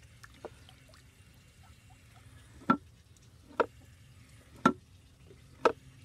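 Four short, sharp wet plops about a second apart at a red self-filling poultry waterer cup full of mud as it is being cleaned out.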